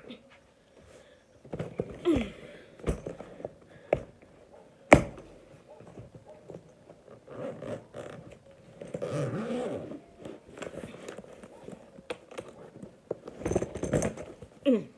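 Things being handled and packed into a bag: rustling with several sharp knocks and thuds scattered through, the loudest about five seconds in.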